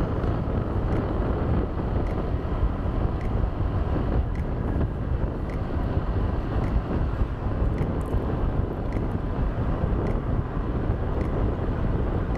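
Motor scooter riding along at speed: steady wind rush on the microphone mixed with engine and road noise. A faint tick repeats about once a second.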